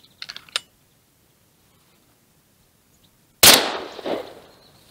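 A single shotgun shot about three and a half seconds in, very loud, with a long echoing tail. A few short sharp clicks come in the first second.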